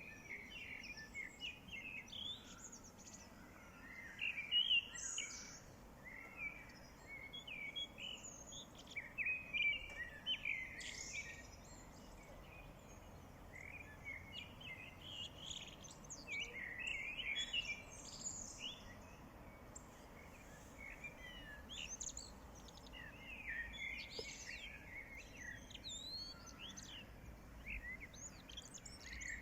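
Small songbirds chirping and singing in quick, busy phrases, with short lulls, over a faint steady background hiss.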